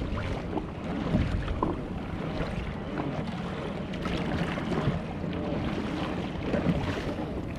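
Sea water splashing and slapping along the side of a moving pedal-drive kayak's hull in choppy water, with wind on the microphone.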